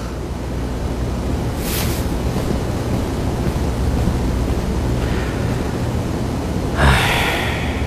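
A steady rushing noise that grows slightly louder, with a brief hiss about two seconds in and a short, louder whoosh near the end.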